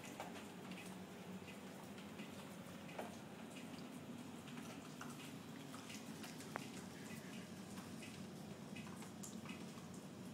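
Faint steady rain with scattered drips and ticks, over a low steady hum; a single sharper click comes a little past the middle.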